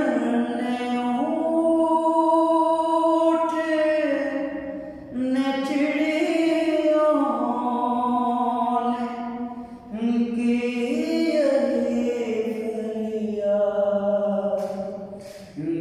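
A man singing a naat solo and unaccompanied, in long held notes, breaking for breath about five and ten seconds in.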